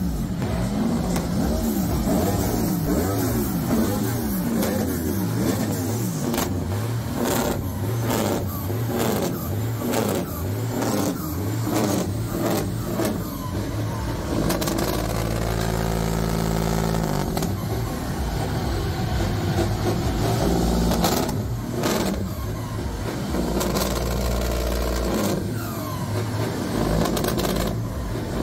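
Big diesel semi-truck engine revved again and again, its pitch rising and falling, with sharp exhaust pops and bangs, most of them between about six and twelve seconds in and again around twenty-one seconds. In the middle the engine holds a steady high rev for several seconds.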